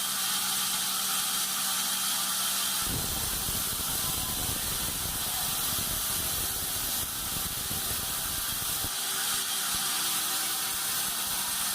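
Band sawmill running: a steady high hiss over a faint hum, joined by a rough low rattle from about three seconds in until about nine seconds in.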